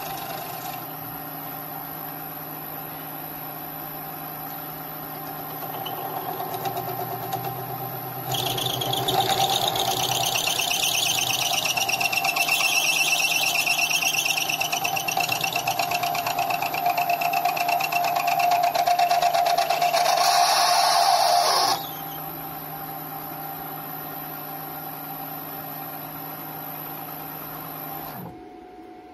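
Mini lathe motor running with a steady whine. About eight seconds in, the insert bites into hardened steel and a loud, high screeching cut runs for about thirteen seconds, a cut that chipped the insert. The tool comes off, the lathe runs on, and near the end the motor is switched off and spins down.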